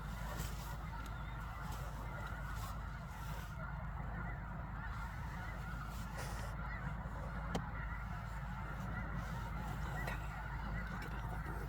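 A large flock of geese honking continuously, many calls overlapping.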